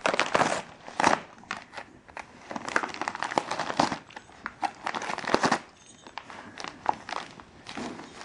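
Siberian husky tearing and crumpling Christmas wrapping paper with its teeth, in irregular bursts of crinkling and ripping that grow quieter near the end.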